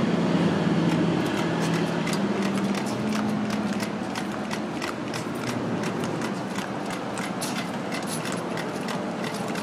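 Measuring wheel rolling over concrete, its counter clicking off the feet at a steady pace of about three clicks a second. A low steady hum sounds under the first three seconds or so.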